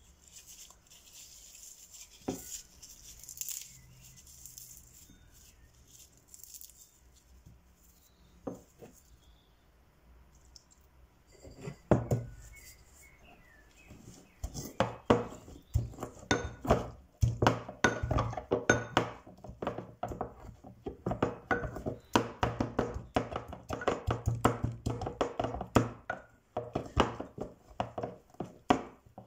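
Fresh dock leaves crumpled by hand into a ceramic bowl, then crushed in it with the end of a wooden rolling pin: a few single knocks, then from about halfway a fast, continuous run of thuds and grinding strokes of wood on leaves and bowl.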